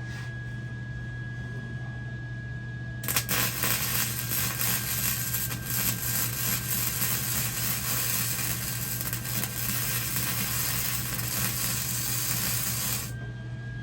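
Welding arc crackling steadily for about ten seconds as a bead is laid on the smoker's steel lid hinge, starting about three seconds in and cutting off near the end, over a steady low hum.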